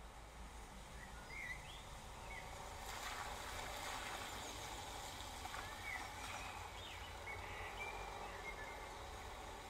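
Steady rain falling on a wet street, with the hiss of tyres on the wet road swelling about three seconds in and fading over the next few seconds as a car passes. Birds chirp briefly several times.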